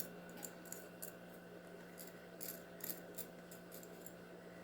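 Crushed mirror glass clinking in small, irregular ticks as it is spooned around the edge of a mold, over a faint steady hum.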